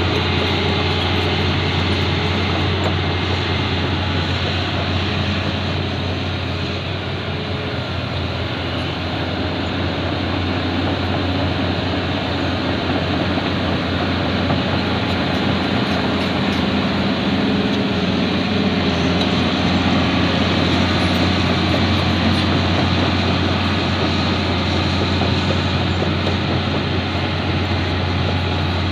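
Excavator's diesel engine running steadily with a low drone, swelling a little in level about two-thirds of the way through.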